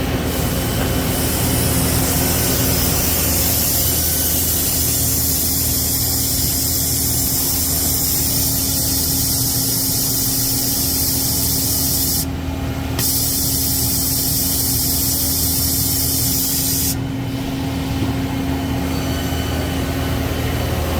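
Citizen K16E CNC Swiss lathe running its program with the high-pressure coolant on: a steady hiss of coolant spray over a steady machine hum. The hiss cuts out briefly just past halfway and drops away about four seconds before the end.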